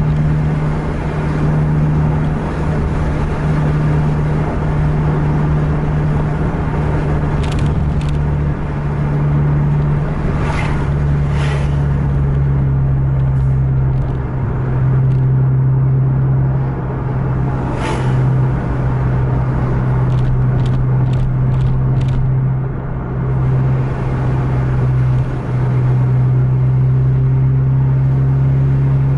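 Coach diesel engine running steadily under load at cruising speed, heard from inside the cab as a continuous low drone with road rumble. A few brief hisses come around the middle.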